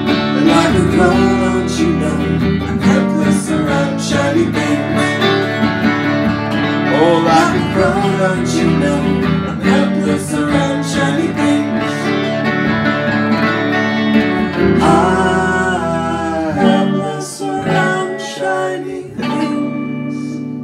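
Live band music with no lyrics sung: electric guitar and a second plucked string instrument over a full band, with a clarinet and some singing voices. The music thins out near the end.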